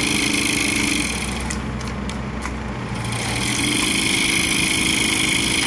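Tractor engine running steadily, louder for the first second and again from a little past the middle, with a dip in between.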